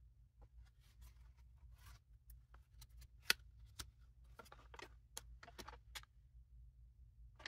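Paper handling: a journal's cover opened, pages turned and a folded paper map opened out, making a run of short, faint rustles and crinkles with one sharper click a little over three seconds in.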